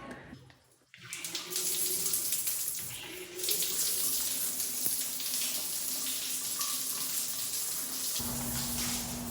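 Shower water running in a steady hiss, starting about a second in after a brief near-silence. A low steady hum joins near the end.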